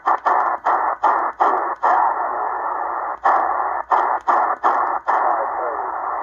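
Eton Grundig Satellit Executive shortwave receiver in lower sideband hissing with band noise while being tuned up through the 40 m band. The audio drops out with a click at each tuning step, about a dozen steps with a pause about two seconds in. The steps stop about five seconds in, leaving steady hiss.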